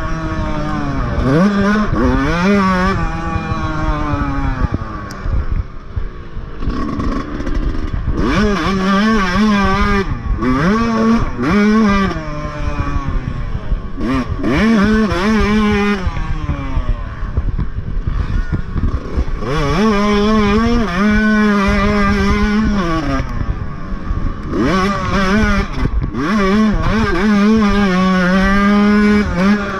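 Motocross dirt bike engine heard close up from on board, the throttle opened and closed over and over. Its pitch climbs and falls back repeatedly as the bike accelerates, shifts and backs off, with two longer stretches held at steady high revs near the middle and near the end.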